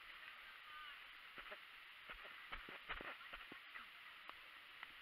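Faint, irregular clicks and knocks from a horse's hoofbeats and tack, heard from a helmet camera on the rider while the horse moves. A brief honk-like call is heard about a second in.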